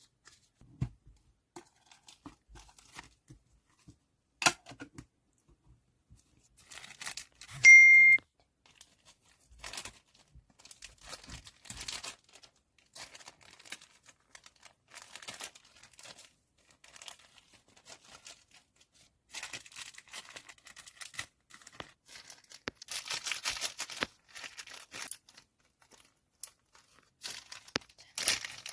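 Photocard packing: plastic sleeves crinkling and tape being torn and peeled, with scattered small clicks and taps; a longer tearing crackle comes about 23 seconds in. A short, loud, high ding sounds about 8 seconds in.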